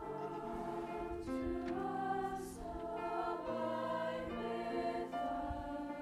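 Large mixed choir singing in parts, holding sustained chords that change every second or two.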